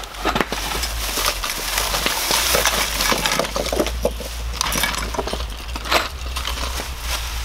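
Plastic bag crinkling as it is handled, with small clicks and clinks of items being set down on a wooden table. The crinkling is densest in the first half and gives way to scattered clicks.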